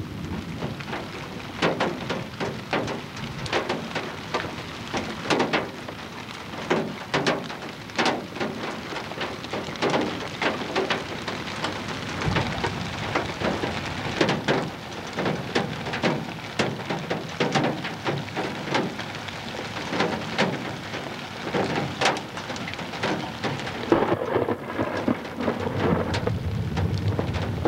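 Gusty storm wind buffeting the camcorder's microphone: a steady rushing noise broken by irregular hard buffets about once or twice a second.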